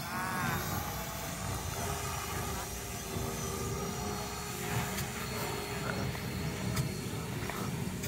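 Distant electric RC plane with a 2208 1000kv brushless motor, its thin whine rising and falling in pitch for about a second near the start, over a steady low rumble.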